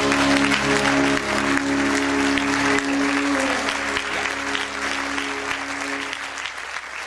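An audience applauds over the live band's final held chord. The chord rings and dies away about six seconds in, and the applause and the whole sound fade out toward the end.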